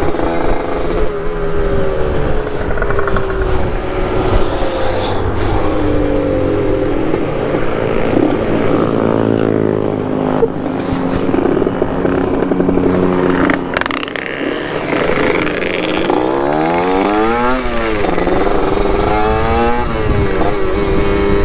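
Two-stroke motorcycle engines running on the move, revving up and falling back through the gears. Near the end the pitch drops steeply and then climbs again.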